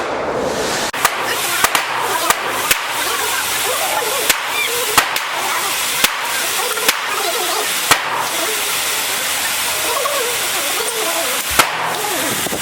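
Gunfire at a shooting range: about a dozen sharp shots at irregular intervals, with a lull of a few seconds near the end, over a steady background hiss.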